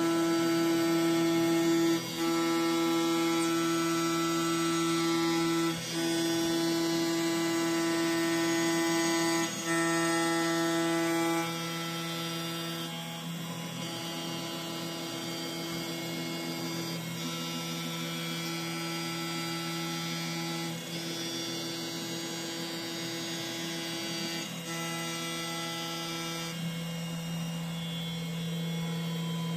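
CNC milling machine spindle at 10,000 rpm with a 10 mm two-flute end mill on a contour and finish pass in aluminium: a steady pitched hum with a stronger singing tone from the cut, broken by brief gaps as the tool changes direction. About twelve seconds in the cutting tone grows quieter while the spindle hum carries on.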